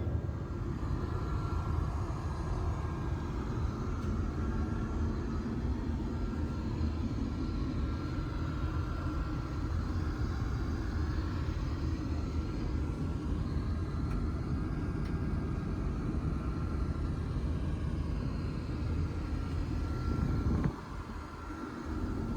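Steady low rumble of an Airbus A380 airliner heard from inside the cabin: engine and airflow noise. The rumble dips briefly near the end.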